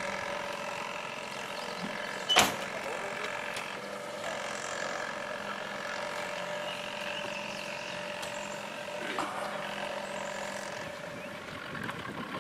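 Small outboard motor running steadily at a constant speed, with a sharp click about two seconds in.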